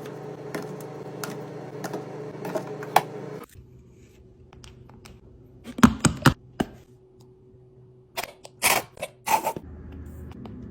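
Food containers and packaging being handled and set down while restocking a fridge: scattered sharp clicks and taps, with a soft hum behind them. The sound changes abruptly about a third of the way in. Louder clusters of knocks come near the middle and again about two-thirds of the way through.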